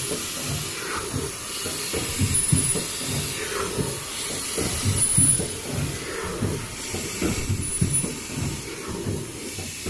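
An automatic foldable KN95 mask production line running at about 22 masks a minute: a continuous low mechanical clatter from its rollers and conveyor belts, with a steady hiss over it.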